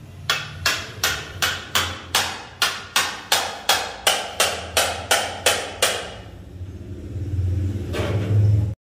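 Hand hammer striking in a steady rhythm, about three blows a second for some six seconds, each blow with a short ring. Then a low rumbling noise swells up and cuts off abruptly.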